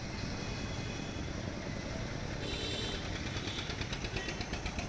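Street traffic: a steady rumble of motor vehicles and engines running, with faint high tones joining about halfway through.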